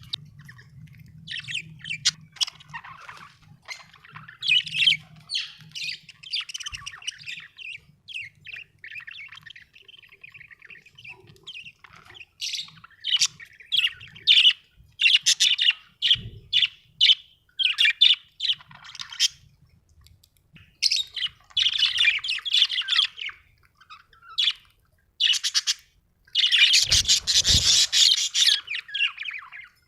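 Budgerigars chirping and warbling in quick runs of short, high chirps, with a louder, denser burst of squawking near the end.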